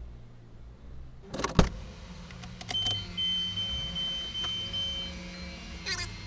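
A car door clunks open with a sharp knock about a second and a half in. A steady high-pitched electronic warning beep then sounds for about two seconds, and rattling clicks come near the end.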